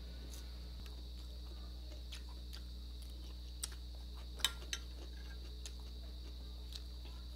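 Quiet eating sounds: a few light, scattered clicks and taps from mouth, fingers and a metal spoon against a small glass dipping-sauce bowl, the sharpest a little past halfway, over a steady low hum.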